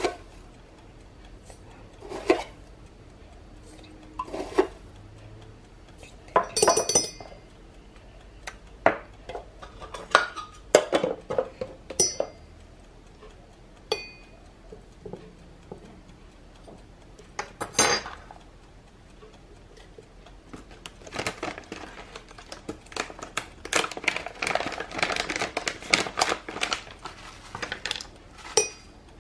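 Metal teaspoon clinking and knocking against a porcelain teapot and its lid as loose tea is spooned in: scattered single clinks, then a busier run of quick small clinks near the end.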